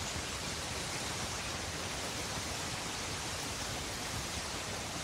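Steady, even rushing noise of a nature soundscape, with no distinct events or changes.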